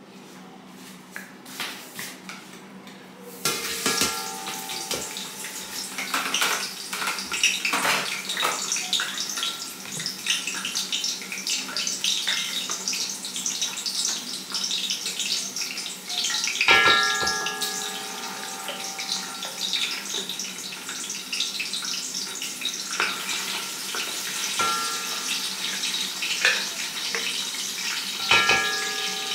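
Palm and olive oil sizzling and crackling in a large pot on the stove, starting suddenly about three seconds in, with a few ringing clinks of a utensil against the pot.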